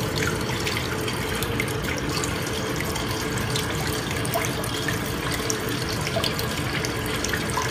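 Water running steadily through a blue bowl gold concentrator, swirling in the bowl and spilling through its centre outlet as it washes black sand away from fine gold. A faint steady hum sits under the water sound.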